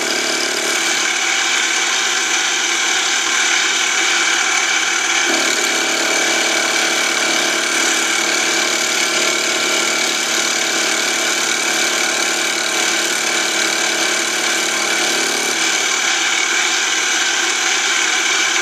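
Mini lathe running with a small cutter spinning in its chuck, milling a slot in a shell holder that is fed into it by hand. It makes a steady motor and gear whine of many even tones, with a deeper note added from about five seconds in to about fifteen seconds in.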